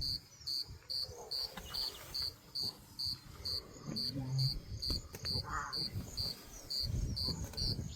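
An insect chirping in a steady rhythm: short high chirps, about two or three a second, over a faint low rumble.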